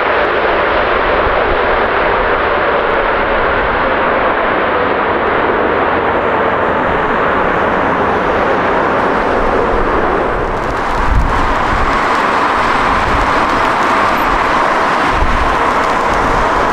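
Steady jet engine roar from an arriving Boeing 777-300ER's GE90 turbofans. About eleven seconds in it cuts, with a brief knock, to a second jet, an arriving Airbus A320neo, whose roar carries a steady whine.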